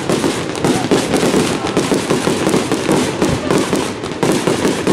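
Aerial fireworks display: a dense barrage of shell bursts, many bangs a second overlapping into a continuous volley without pause.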